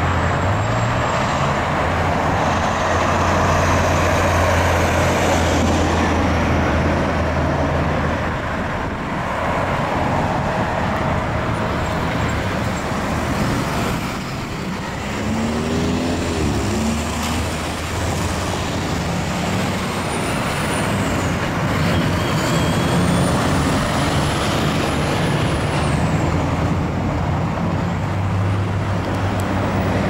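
Road traffic at a busy intersection: cars, a city bus and a semi truck driving past and idling, with a steady low engine drone. About halfway through, one engine rises briefly in pitch as it pulls away.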